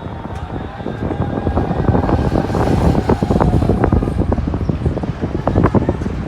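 Wind buffeting the microphone: a loud, rough rumble with many short gusty thumps.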